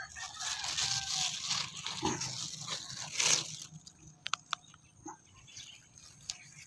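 A thin plastic bag crinkling and rustling for the first few seconds, loudest just past the middle, then a few light clicks.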